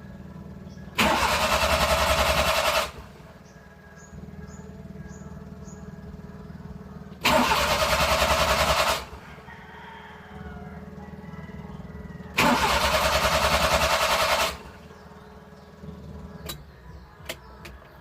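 Suzuki F6A three-cylinder engine cranked on the starter three times, about two seconds each, without catching: the engine cranks but won't start. A low steady hum runs between the attempts, and a few sharp clicks come near the end.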